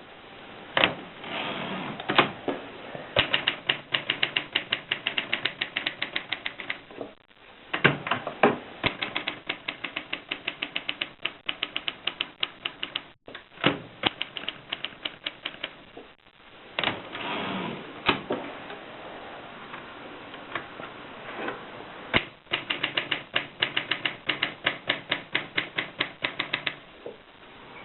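Antique Adler typewriter being typed on: runs of quick, sharp keystroke clacks, several a second, broken by short pauses.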